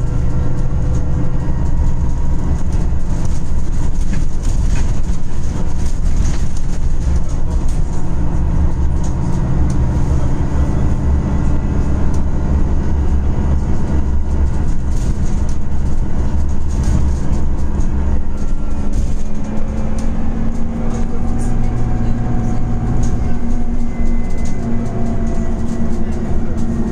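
Cabin noise aboard a Scania Citywide LFA articulated city bus running on compressed natural gas: a steady low drone of engine and road noise while under way, with scattered clicks and rattles. About twenty seconds in, the engine note rises slowly.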